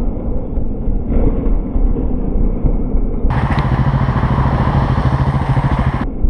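Motorcycle riding with heavy wind rumble on the microphone. About three seconds in, a steady engine drone and a brighter hiss come in, then drop away near the end.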